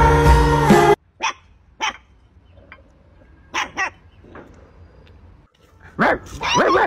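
Music for about the first second, then a few short, separate puppy yips, followed near the end by louder, longer puppy barking and yelping.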